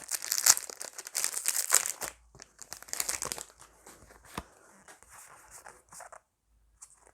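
Foil Pokémon booster pack wrapper being torn open and crinkled: dense crackling for the first three and a half seconds, then scattered rustles and clicks that die away near the end.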